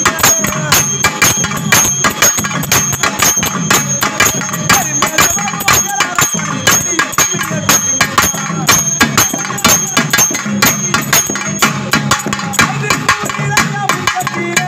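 Live band music played in a crowd: rapid, steady drumbeats with a high metallic ringing, like bells or cymbals, running over them.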